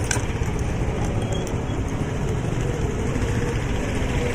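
Motorcycle engines running as motorcycles ride past, a steady low rumble.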